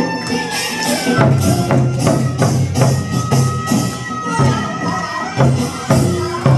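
Korean traditional music accompanying a Jindo drum dance: strokes of the buk barrel drum in a steady rhythm, with bright metallic percussion and a held, sliding melody line above.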